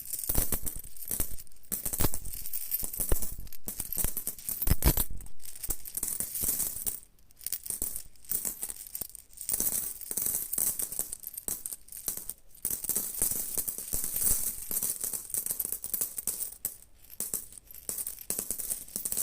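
Metal coins jingling and clinking together in a dense, continuous stream of small chinks, as if shaken or sifted in the hand, with a short lull about seven seconds in.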